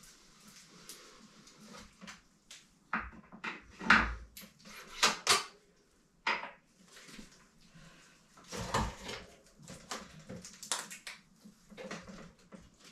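Rear wheel of a gravel bike being worked out of the frame: irregular metallic clicks, clinks and knocks, loudest around four to five seconds in, with a heavier knock near nine seconds.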